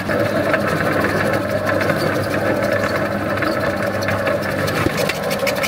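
Electric-motor-driven tomato slicer running with a steady motor hum while tomatoes are fed through its cutter.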